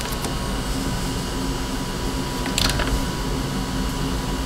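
Steady low mechanical hum, with a single faint click about two and a half seconds in.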